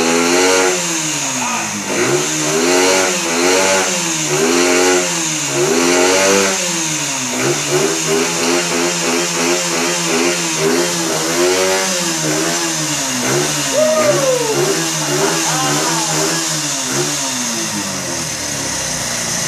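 Honda XR100 dirt bike's single-cylinder four-stroke engine, freshly revived after two decades of sitting, being revved in repeated throttle blips, the pitch rising and falling about once a second, with a steadier stretch in the middle, then settling to a steady idle near the end.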